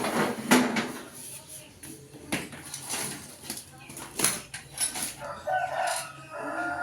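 A run of sharp clicks and knocks, with a bird calling in the background near the end.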